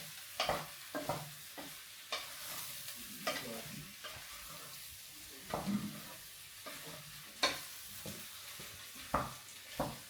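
Sliced potatoes frying in hot oil with a steady sizzle, broken by irregular knocks and clinks from the cooking.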